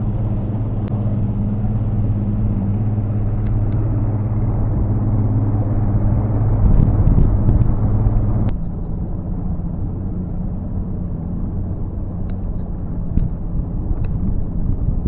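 Bass boat running at speed under its Mercury 200 outboard motor: a steady engine drone with water and wind rushing past. About eight and a half seconds in, the sound changes abruptly to a thinner, quieter drone, with a few light ticks near the end.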